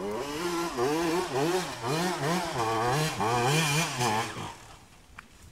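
Dirt bike engine revving up and down under load as it climbs a steep slope, the revs rising and falling about twice a second, then fading away about four seconds in.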